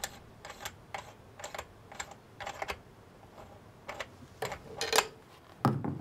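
Small, irregular clicks and taps, about two a second, of hands handling a magnetic clam mine and its screws on a table, with a louder knock about five seconds in.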